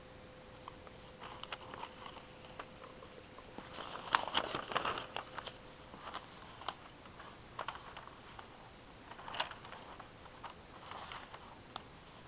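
Paper pages of newspaper coupon inserts being handled and turned: rustling and crinkling in short bursts, the loudest about four seconds in, with smaller ones later.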